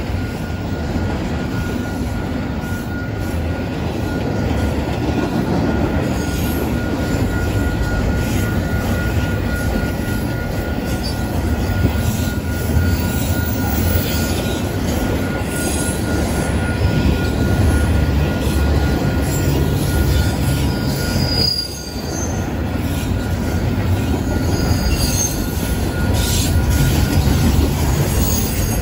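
Double-stack intermodal well cars rolling past: a steady low rumble of steel wheels on rail, with a thin steady wheel squeal and short high squeaks over it.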